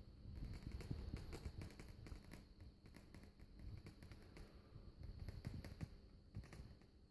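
Shigaclone CD player making a strange noise: faint, irregular clicking and ticking, several a second, over a low rumble and a faint steady hum.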